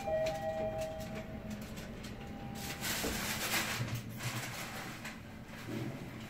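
Glass-walled express elevator cabin: a two-note falling chime right at the start, its lower note ringing on for about a second and a half, over the steady noise of the moving car.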